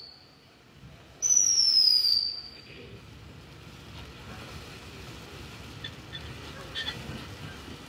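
Ground firework going off: a loud whistle, falling slightly in pitch, starts about a second in and lasts about a second. After it comes a quieter steady hiss of the fountain spraying sparks, with a few faint crackles near the end.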